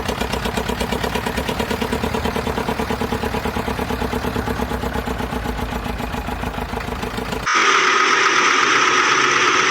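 Vehicle engine running steadily with an even, rapid throb; about seven and a half seconds in it cuts off abruptly and a brighter, higher-pitched steady mechanical sound takes over.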